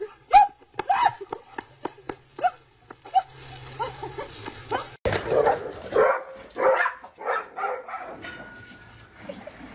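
Dogs barking and yipping in short, quick calls, several a second. About halfway through they give way to a second run of louder barks.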